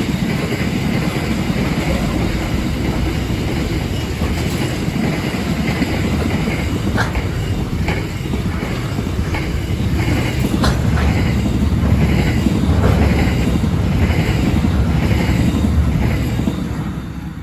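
Long freight train of platform wagons rolling past at speed: a steady rumble of wheels on rail with a regular clickety-clack and a few sharp clicks, fading away near the end.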